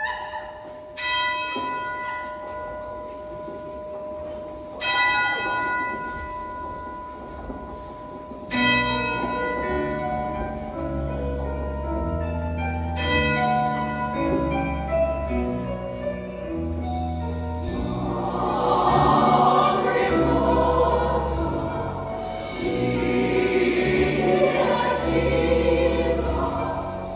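Opening of a show choir number: a few tolling bell tones struck about four seconds apart, each ringing out slowly. A band then comes in with deep sustained bass notes and chords, and a little past halfway the full choir joins in singing over it.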